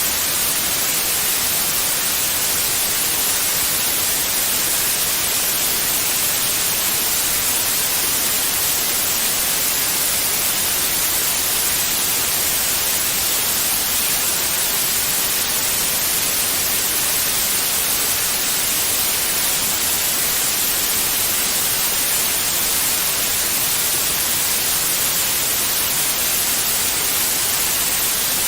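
Continuous white noise: an even, unchanging hiss, brightest in the high frequencies, played as a baby-soothing sleep sound.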